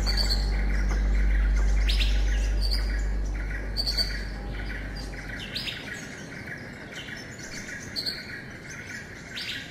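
Birds chirping in short, repeated falling calls, over a steady high hiss and a low rumble that fades away about halfway through.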